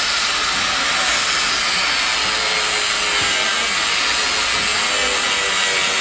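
Handheld electric angle grinder cutting iron with an abrasive disc: a steady grinding noise with a thin high whine over it, running without a break.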